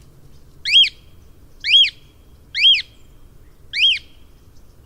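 Cockatiel calling: four short whistled calls that rise in pitch, about one a second, over a faint low hum.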